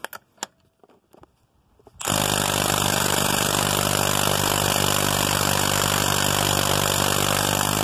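Milwaukee M12 Fuel Stubby cordless impact wrench hammering steadily for about six seconds, starting about two seconds in. It is breaking loose and spinning off a wheel lug nut torqued to 50 ft-lb.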